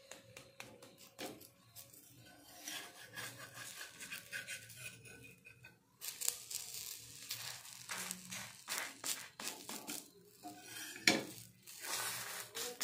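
Metal spatula scraping and tapping on a flat metal griddle (tawa) while lifting and rolling a patishapta crepe: irregular scrapes and clicks, with a sharper clink about eleven seconds in.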